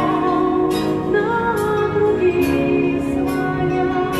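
A woman singing into a handheld microphone, amplified, holding long notes over a steady instrumental backing.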